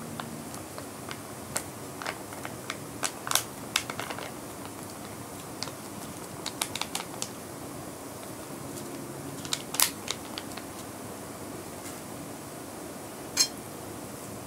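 Plastic sachet crinkling as the sauce is squeezed out onto the noodles, with scattered light clicks and clinks of a metal spoon and fork against a glass plate, the last one near the end as the noodles are stirred.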